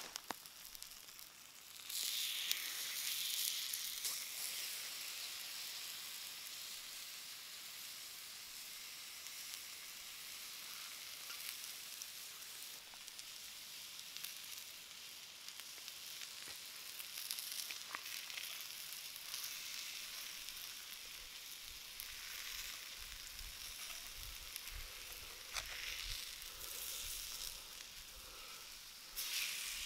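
Bacon-wrapped pork medallions sizzling on a hot stone in campfire embers: a steady frying hiss with a few small clicks, louder for a moment about two seconds in.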